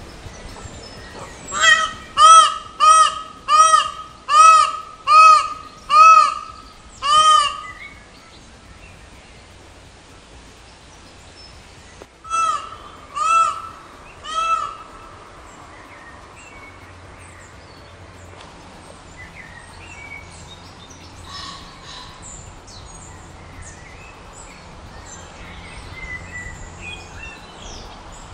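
Indian peafowl (peacock) calling loudly: a quick series of eight short, arched calls about a second apart, then after a pause of several seconds three more. Faint chirps of small birds follow.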